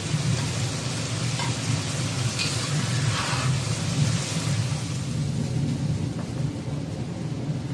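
Sauce with braised fish and chillies sizzling in a hot wok over a steady low rumble, while a metal spatula lifts the fish out onto a plate with a few faint scrapes.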